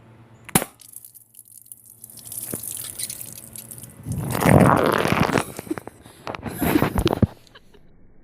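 A single sharp shot from a spring-powered airsoft pistol, then water spraying and splashing from a burst water balloon, in two louder gushes.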